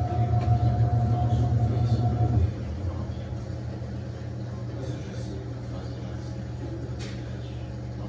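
Panasonic top-loading washing machine on its tub-cleaning cycle: the motor hums as it drives the pulsator through a full tub of water, then cuts off about two and a half seconds in, leaving a quieter steady sound as the water keeps moving.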